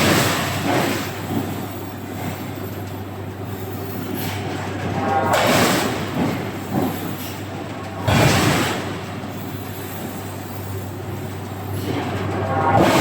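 Heavy forging-shop machinery: a steady low hum with loud rushing, screeching surges, near the start, twice in the middle and again near the end.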